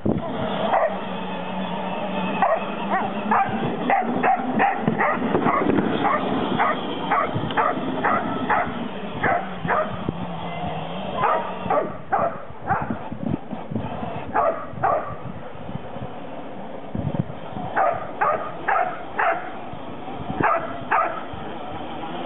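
A dog barking repeatedly: a quick run of barks through the first half, then shorter groups of two or three barks.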